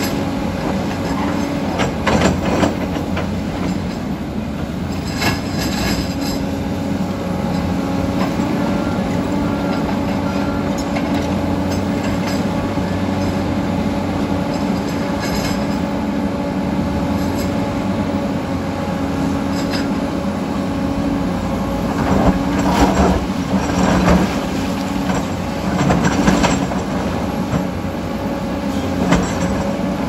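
Heavy diesel earth-moving machinery at work, a crawler excavator and a Komatsu D85EX bulldozer: a steady engine drone with intermittent metallic clanks and scrapes of bucket and steel tracks on rock, the clanking heaviest in a cluster past the two-thirds mark.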